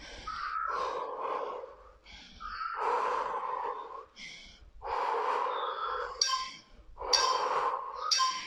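A woman breathing hard with the effort of squats, four heavy breaths about two seconds apart.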